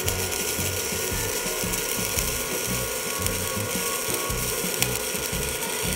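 Miller 120-volt flux-core wire-feed welder running a bead on steel: the steady crackle and hiss of the arc, which cuts off right at the end.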